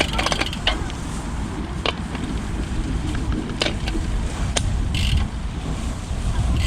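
Road bike being ridden along park paths: wind rumbling on the microphone, with several sharp clicks and rattles from the bike.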